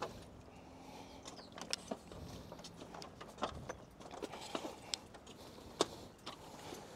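Footsteps while walking, with irregular sharp clicks and knocks from carried gear jostling.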